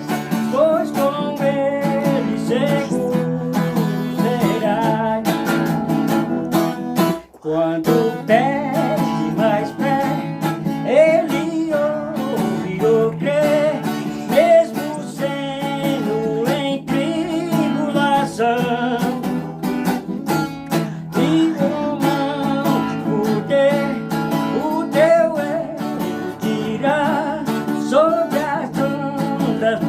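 Hymn music with strummed acoustic guitar accompaniment under a wavering melody line. The music drops out briefly about seven seconds in.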